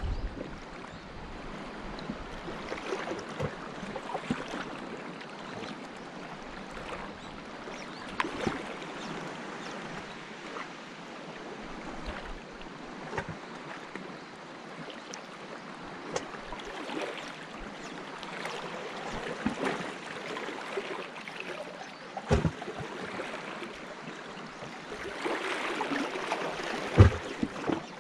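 Small sea waves lapping and gurgling against shoreline rocks, with scattered light clicks and knocks throughout. The water swells louder briefly near the end, with one sharper knock.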